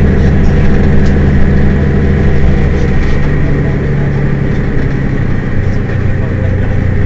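Mercedes-Benz Citaro city bus engine running steadily, its note shifting a few seconds in.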